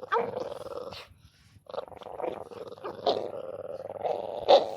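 Dogs growling as they play-fight, in two rough stretches with a short break about a second in. There are two sharper, louder snarls, a little after the middle and near the end.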